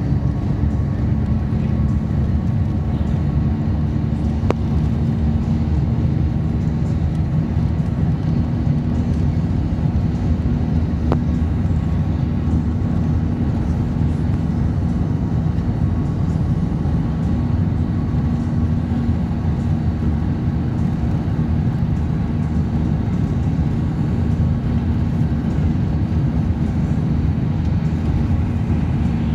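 Intercity bus cruising at highway speed, heard from inside the passenger cabin: a steady low rumble of engine drone and road noise with a constant hum. Two faint ticks come through, about four and a half seconds in and again around eleven seconds.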